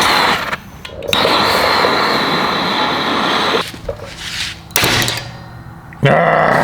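Handheld blowtorch flame hissing as it heats the back of a hammer drill's chuck to free a stuck set screw. The steady hiss stops and starts several times, the longest stretch lasting about two and a half seconds.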